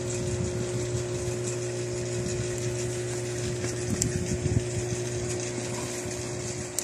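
Aquarium air pump humming steadily as it drives a sponge filter, with bubbling water over the hum.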